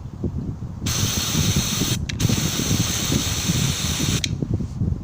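Animal-repellent aerosol can spraying with strong pressure: a loud hiss starts about a second in, breaks off very briefly, then runs on for about two more seconds. Wind buffets the microphone with a low rumble.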